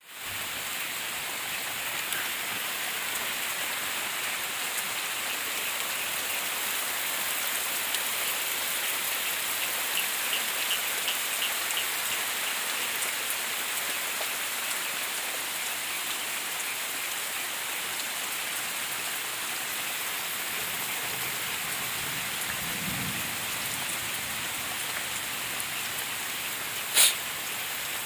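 Steady rain falling, with one sharp click near the end.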